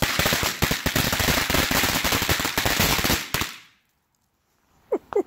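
A strip of Ghost Platinum flash crackers going off in a rapid, dense string of sharp bangs for about three and a half seconds, then stopping suddenly. A few short sliding tones follow near the end.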